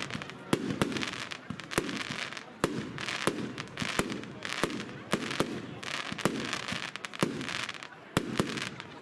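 Evolution 'Snowstorm' firework cake firing. Sharp shot bangs come rapidly, about one to two a second, and each is followed by a spell of crackling hiss.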